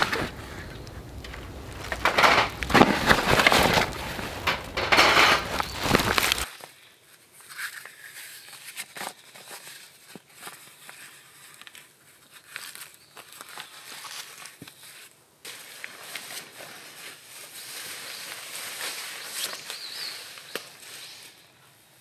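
Camping gear being handled: fabric rustling and a metal mesh grill being moved over a backpack, loud and rough. About six seconds in it cuts off sharply to quiet forest ambience with faint cloth handling and a brief high chirp near the end.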